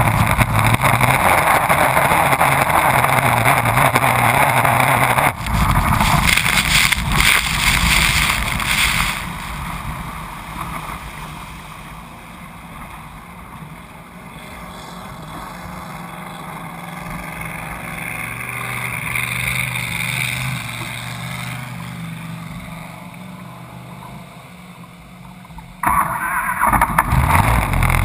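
Race boat engine running hard with water spray and wind rushing past. About nine seconds in it falls away to a much quieter, steady low hum as the boat slows, then comes back loud suddenly near the end as the boat speeds up again.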